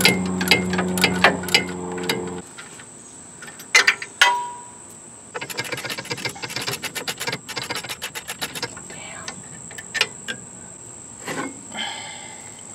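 Hand ratchet clicking in quick runs while working caliper mount bolts on a front brake, over a low steady hum that stops about two seconds in. A couple of sharp metal knocks with a brief ring come about four seconds in, then another run of rapid clicking.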